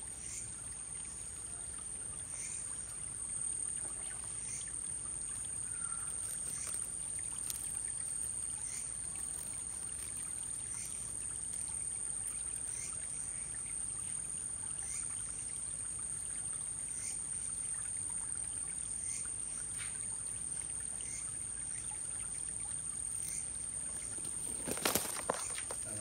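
Outdoor night ambience: a steady high-pitched insect trill, with a short chirp repeating about every two seconds over a steady hiss. A brief burst of rustling about a second before the end.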